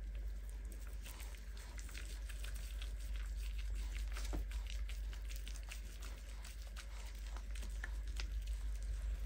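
Hands rubbing and squeezing a wet kitten's soaked fur: soft wet squelching with many small crackling clicks, over a steady low hum.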